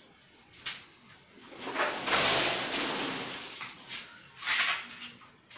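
Rough noise from masonry work with sand and mortar on a brick kitchen counter. A light knock comes first, then a long rough noise of about two seconds, and a shorter one near the end.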